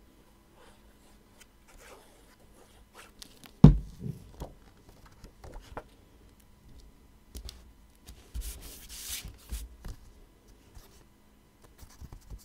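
Sheets of card stock being handled, slid and rubbed together by hand as glued circle layers are pressed and lined up, with small taps and rustles throughout. A single sharp knock sounds about three and a half seconds in, and a longer stretch of paper rubbing comes about two-thirds of the way through.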